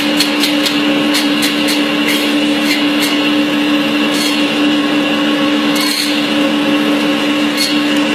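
Electric bone-cutting machine running with a steady hum, with irregular sharp ticks over it.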